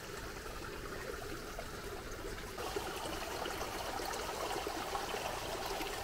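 Small mountain brook running through a drainage culvert pipe: a steady rush of water, growing a little fuller about two and a half seconds in.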